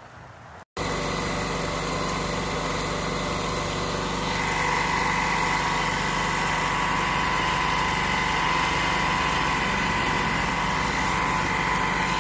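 Small gas engine of a pressure washer running steadily while water is sprayed along a dirty gutter to flush it out; it cuts in just under a second in, and a steady whine grows stronger about four seconds in.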